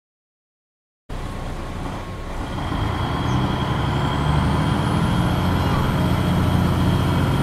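MAN NG 313 articulated bus's diesel engine running, heard from inside the bus, cutting in about a second in and growing louder as it pulls. A faint high whine rises in pitch over it.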